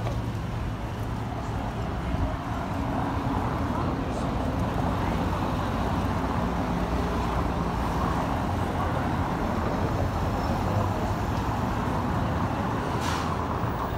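Road traffic noise: car engines running and passing in a steady hum, with people's voices in the background.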